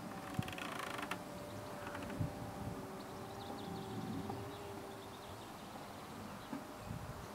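Quiet outdoor ambience: a faint steady hum, a short buzz about half a second in, a few soft low knocks, and faint bird chirps in the middle.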